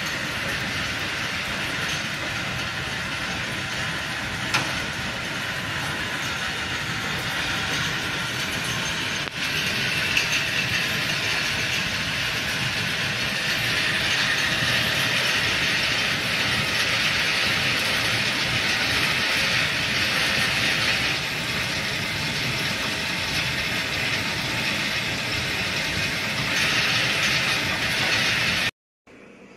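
Wire spool winding machine running, winding galvanized wire onto small spools with a steady mechanical clatter and hiss. It gets louder about nine seconds in and cuts off just before the end.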